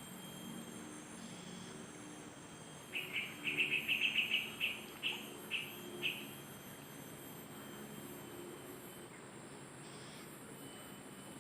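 A bird calling a quick series of about a dozen sharp chirps, starting about three seconds in and slowing toward the end. A steady high insect buzz runs behind it.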